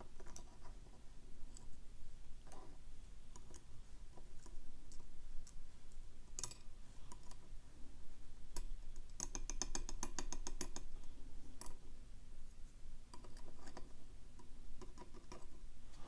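Small metallic clicks and ticks of steel tweezers placing tiny lock pins into the slots of a metal pin tray, scattered and irregular, with a quick run of rapid ticks a little past halfway.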